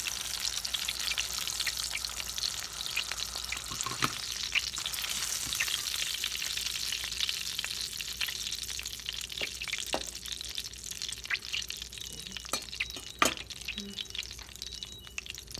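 Sausage grease sizzling in a stainless steel frying pan, with scattered clicks and scrapes of a metal spoon against the pan as the slices are lifted out. The sizzle eases a little in the second half, and one sharp clink near the end is the loudest sound.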